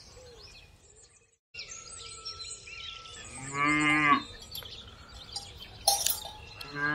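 A cow mooing, two long calls, one about three and a half seconds in and another at the very end, over a background of birds chirping. A short sharp click comes about six seconds in.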